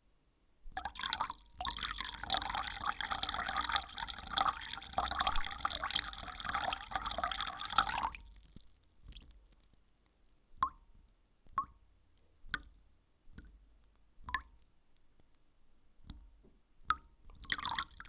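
Water running in a steady stream for about seven seconds, then stopping, followed by single drops falling about once a second, each with a short ringing plop. There is a brief rush of water again near the end.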